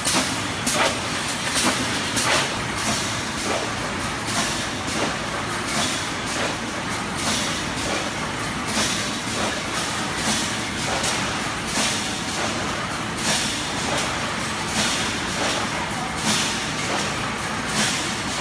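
Automatic wire mesh welding machine running through its cycle, with a steady machine noise and short, sharp hissing bursts repeating roughly once or twice a second.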